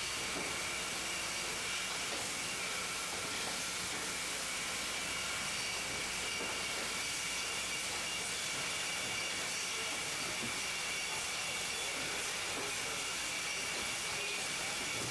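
Yeaman vertical cartoner for box wine running continuously: a steady mechanical hiss with a few high, even whining tones as it folds and carries the cartons.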